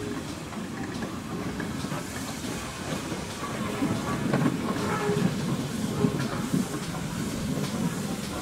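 GWR 2-6-2T small 'Prairie' tank steam locomotive No. 5542 running slowly toward the listener, louder about halfway through, with knocks from its wheels on the rails.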